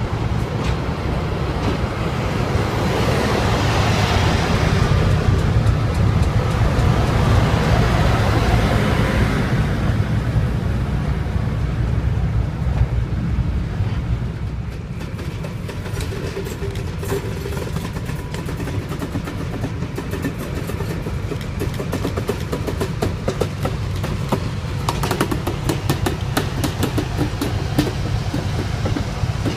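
Class 17 Clayton diesel locomotive running past close by, its engine drone and hiss building to a peak then fading after about ten seconds. Freight wagons then roll past with a run of clicks from the wheels over the rail joints.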